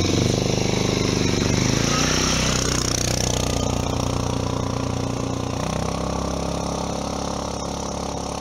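Full-size quad bike engine running as it goes past and drives off. Its pitch drops about two seconds in and the sound slowly fades.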